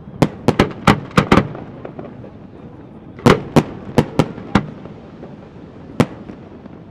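Aerial fireworks bursting in quick volleys of sharp bangs: about six in the first second and a half, a second cluster of five a couple of seconds later, then one lone bang near the end.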